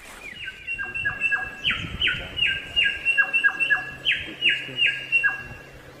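A samyong songbird singing a persistent series of loud, clear whistled notes, each sliding sharply downward, about three a second and switching between a higher and a lower pitch.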